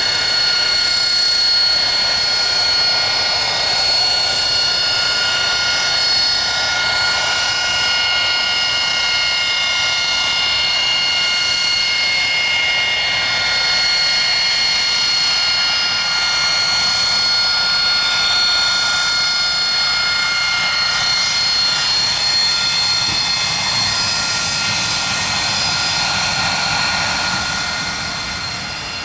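AV-8B Harrier jump jet's Pegasus turbofan running loud and steady, a high multi-pitched whine over a rushing jet noise, easing slightly near the end.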